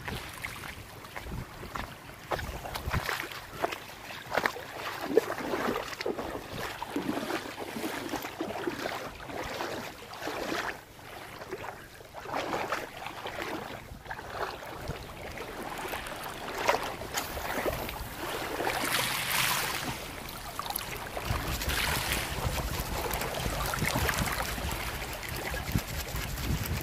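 Legs wading through shallow seawater: irregular splashing and sloshing, with small waves lapping. From about two-thirds of the way through, a low wind rumble on the microphone grows louder.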